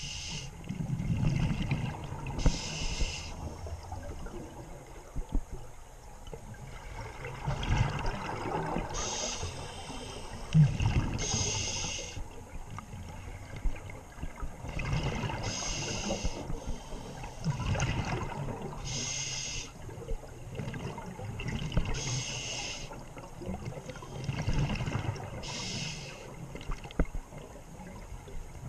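Scuba diver breathing through a regulator underwater: a short hissing inhale every few seconds, alternating with the low rumbling gurgle of exhaled bubbles.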